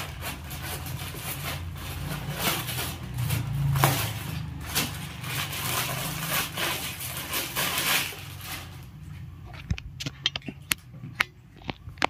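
Clear plastic packaging crinkling and rustling as a dress is worked out of its polythene bag. After about eight seconds this gives way to softer cloth handling with a few light sharp ticks.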